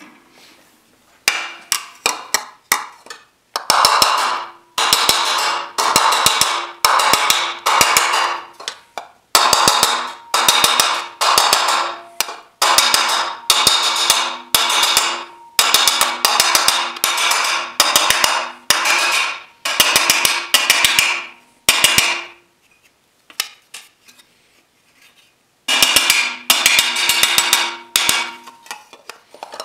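Body hammer striking an aluminum fender panel held over a steel dolly, in runs of rapid ringing blows with a pause of a few seconds near the end. This is hammer-and-dolly work setting the body line for a recessed bead, moving the rounded metal onto the dolly's edge a little at a time.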